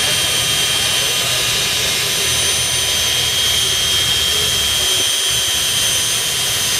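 Electric drill spinning a foam polishing ball, working plastic polish into a headlight lens: a steady, high-pitched motor whine.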